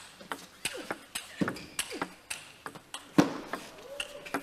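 Table tennis rally: the ball clicks sharply off the rackets and the table in quick, uneven alternation, a few times a second. The hardest hit comes about three seconds in.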